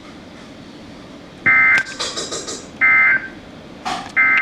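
Three short bursts of Emergency Alert System SAME digital data tones, each about a third of a second and about a second and a half apart. They are the end-of-message signal that closes a severe thunderstorm warning.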